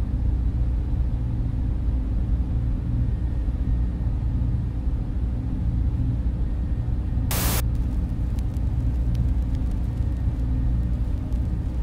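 Steady low rumbling drone of machine-room ambience, with a short burst of static-like hiss about seven seconds in, followed by faint scattered clicks.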